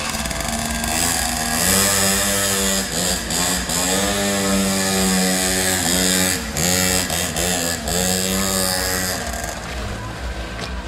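Polini pocket bike's small two-stroke engine revving up and down as it is ridden, its pitch rising and falling every second or so. It fades near the end as the bike moves away.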